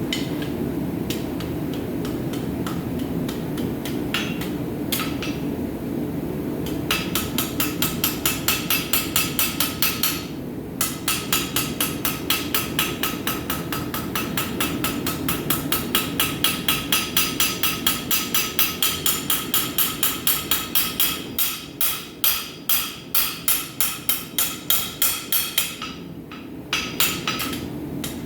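Rounding hammer striking hot steel on an anvil, drawing out and shaping the point of a forged heart: a few light taps, then about seven seconds in, long runs of quick ringing blows, roughly four a second, turning slower and heavier near the end with a short break before a last few strikes. A steady low roar runs underneath.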